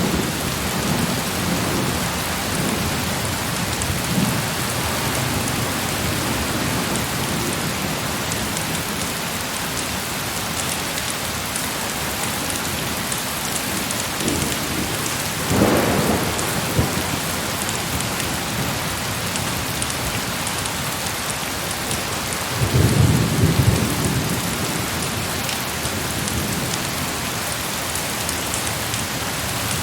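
Heavy rain pouring steadily, with distant thunder rumbling twice: once about halfway through, and again, longer and deeper, some seven seconds later.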